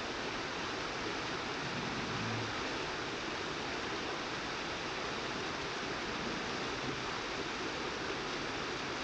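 Steady rushing of a river's fast current, an even hiss with no breaks.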